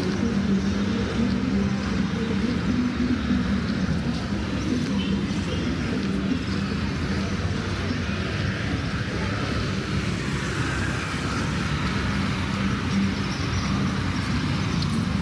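Steady road traffic, with vehicle engines running and passing and a low engine hum.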